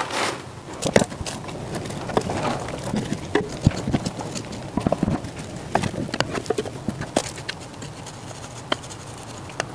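Small hand cultivator and scoop mixing perlite into potting soil in a plastic window box: gritty scratching with irregular clicks and knocks of the tools against the box.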